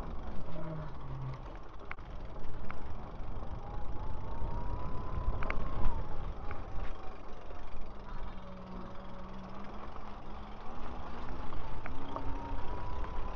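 E-bike riding along a paved trail: a steady rumble of wind and tyre noise, with a faint electric-motor whine that rises and falls in pitch as the bike speeds up and slows. A few sharp clicks and rattles from the bike come over the bumps.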